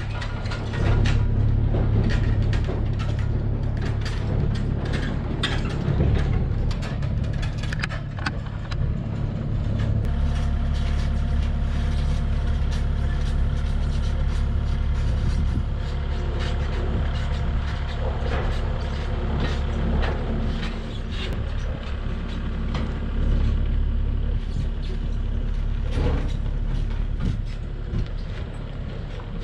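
Kubota KX40 mini excavator's diesel engine running steadily as the machine tracks along with a load raised on its forks. Its tracks and the load clank and rattle, thickest in the first ten seconds or so, and the engine note shifts about ten seconds in.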